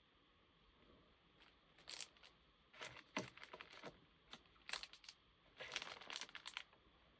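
Faint crinkling of packaging with light clicks, in several short bursts over a few seconds, as items are handled.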